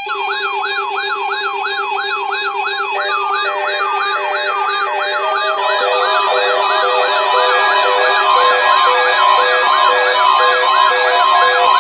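Layered electronic siren sounds: a siren sweeping quickly up and down about two and a half times a second over a steady low tone. More sirens and repeating beeps pile on about three and six seconds in, and the whole sound grows louder.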